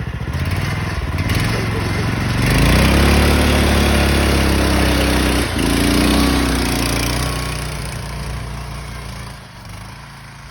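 Go-kart's small engine revving up and running loud from about two seconds in, with a brief dip in the middle, then fading away.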